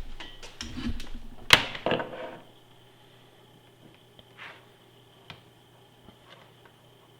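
Clicks and knocks from small parts being handled, an inductive proximity sensor and its wires, with one sharp click about one and a half seconds in. After that only a faint steady hum and a few light ticks.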